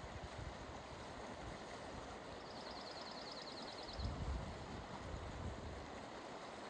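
Lostine River flowing: a steady rush of moving stream water. A short, rapid high trill cuts in for about a second and a half in the middle, and a brief low rumble comes about four seconds in.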